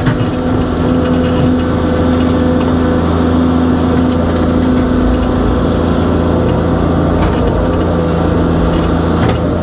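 Excavator's diesel engine running steadily under load while the machine digs, heard from inside the operator's cab.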